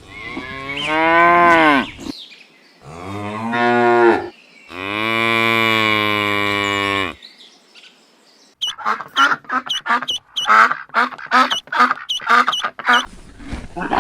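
Cattle mooing three times, the last call long and steady. This is followed by a fast run of short, repeated calls from another animal, about three a second.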